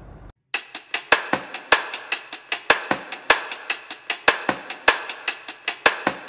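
Background music: a fast, steady drum-kit beat with cymbals, about five hits a second. It starts suddenly about half a second in.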